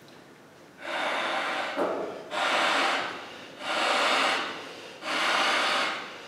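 A man blowing into the blowpipe of a gaita mirandesa (Mirandese bagpipe) to fill the bag: four long, breathy blows about every second and a half, with no pipe tone sounding.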